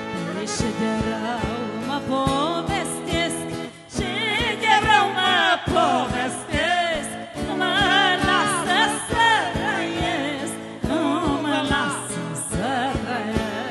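Traditional Maramureș party music: a lead melody with heavy vibrato over sustained keyboard-like chords and a steady beat, with the melody at its loudest through the middle.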